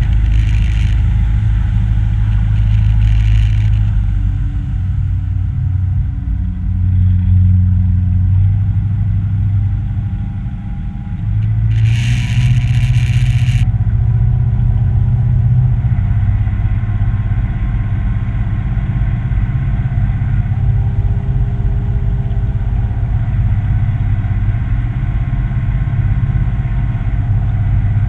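A small boat's motor running steadily under way, a loud low rumble with a faintly drifting hum. Brief bursts of hiss break through, the longest about twelve seconds in.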